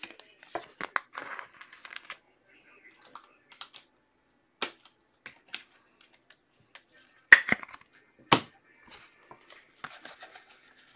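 Football trading cards and their pack wrapper being handled on a table: light rustling and crinkling with scattered sharp taps and clicks, the loudest two about seven and eight seconds in.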